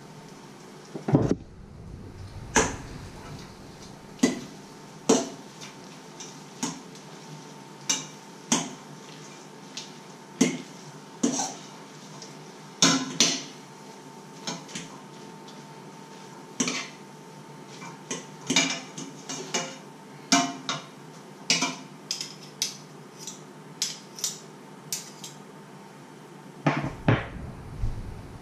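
A metal utensil stirring spaghetti and eggs in a steel cooking pot, clinking sharply against the pot at irregular intervals of about a second. There is a heavier knock about a second in and again near the end.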